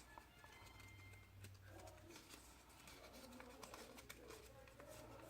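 Near silence with faint rustling and light taps of folded card stock being handled.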